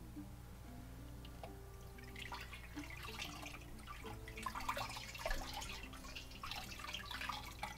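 Water splashing and dripping in a sink as wet, freshly dyed spinning fiber is pressed down and lifted in a cold-water rinse, starting about two seconds in and getting louder.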